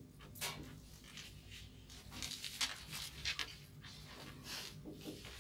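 Marker writing on a whiteboard: a run of short scratchy strokes, one after another.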